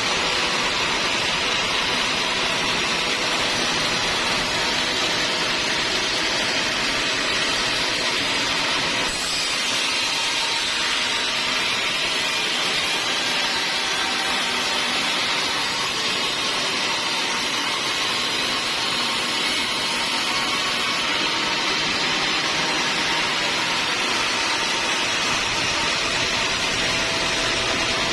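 Sawmill circular saw running steadily, its dense whine and hiss holding at one level, with a brighter high hiss for a stretch in the middle that fits the blade cutting through wood.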